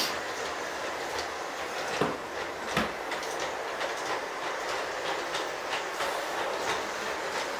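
LGB G-scale electric model train with passenger coaches running around a track on a hard floor: a steady rolling hum of motor and wheels, with light regular ticks of the wheels clicking over the rails and two sharper clicks about two and three seconds in.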